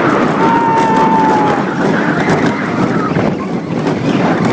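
Wind rushing over the phone's microphone with the rumble of a roller coaster train at speed through its elements, and a brief steady high whine from about half a second in.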